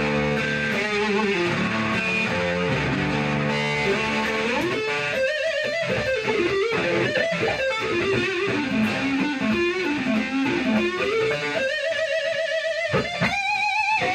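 Firefly FFLV Flying V electric guitar being played. For the first four seconds or so it holds low chords, then it plays a single-note lead line with string bends and vibrato, ending on a long held note with vibrato.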